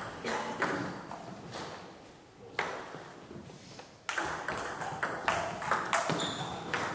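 Table tennis ball clicking off bats and table: a few scattered clicks, then from about four seconds in a quick rally with about three hits a second.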